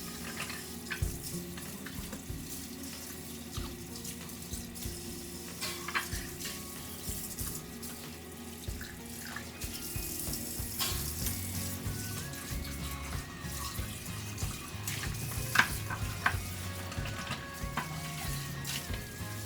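Water running from a kitchen tap into a sink, with a few sharp clinks of dishes, over soft background music.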